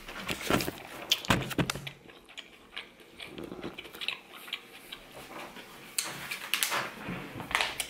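Camera being handled and repositioned: scattered light clicks and knocks, a cluster in the first two seconds and another near the end, with a quieter stretch between.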